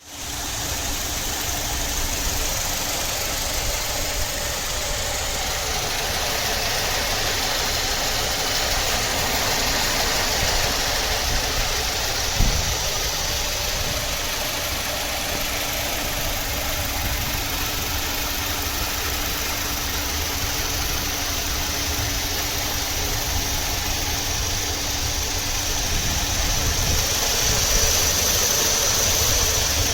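A 2002 Saturn LW200's 2.2-litre four-cylinder engine idling steadily, on a car with a random misfire. A single sharp knock about halfway through.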